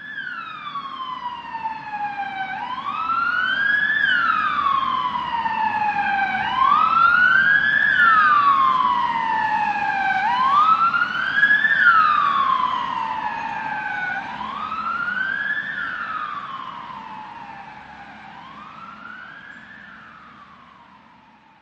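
Emergency vehicle siren wailing, its pitch climbing and then falling slowly about every four seconds, over a low rumble. It grows louder toward the middle and fades away near the end.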